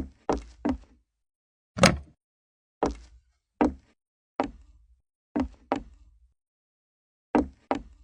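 A series of about ten short knocks at an uneven pace, with one sharper, louder hit about two seconds in and a pause of about a second near the end.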